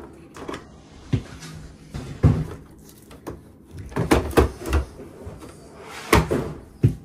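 Hands fitting the blue plastic bottom cover onto an Intergas Xtreme boiler: a series of hollow plastic knocks and clunks as the panel is handled and pushed into place. The loudest come in a cluster about four seconds in and again just after six seconds.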